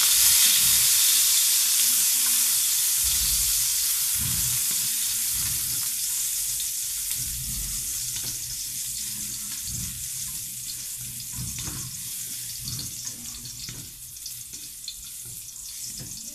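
Chopped garlic sizzling in hot oil in a steel wok, loud at first and dying down steadily, with the scrape of a spatula stirring it. The garlic is being fried until soft and golden brown.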